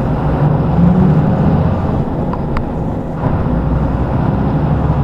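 Vehicle engine and road noise heard from inside the cabin while driving and turning, a steady low rumble with a faint hum, and a couple of faint ticks about two and a half seconds in.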